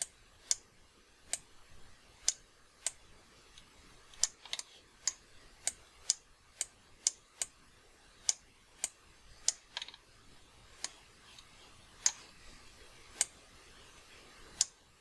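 Computer mouse button clicking, about twenty sharp single clicks at an uneven pace, as sculpt-brush strokes are applied.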